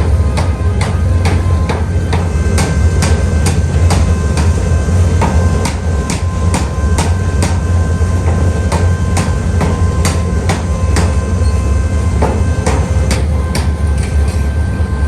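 Metal being hammered in forging, with rapid, fairly regular strikes about two to three a second over a steady, loud low hum of shop machinery.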